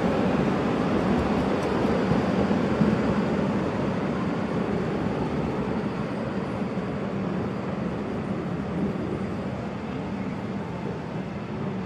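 Utsunomiya Light Rail HU300 low-floor tram running on its rails as it pulls away from a stop, a steady rumble that fades gradually as it moves off.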